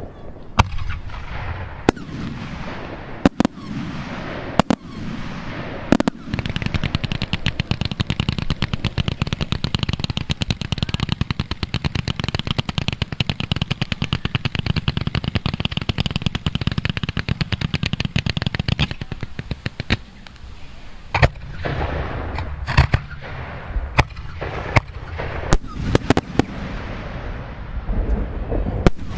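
Fireworks display finale: scattered bangs of bursting fireworks, then about six seconds in a dense volley of many reports a second that runs for about thirteen seconds, then scattered bangs again.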